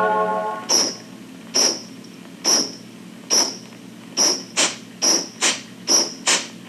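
Music: a fading marimba note, then a bright percussion tick, hi-hat or shaker-like, keeping an even beat, with off-beat ticks joining in about halfway through.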